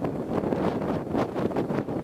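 Wind gusting against the microphone, an uneven rumbling buffet that surges and eases.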